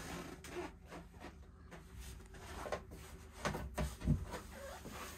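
Faint knocks, rustles and low thumps of someone moving about inside a small yacht cabin, with a few louder thumps past the middle.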